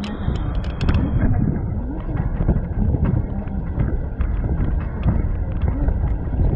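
Wind buffeting the microphone on the open upper deck of a moving double-decker bus, over the low rumble of the bus on the road. A few sharp clicks or rattles come in the first second.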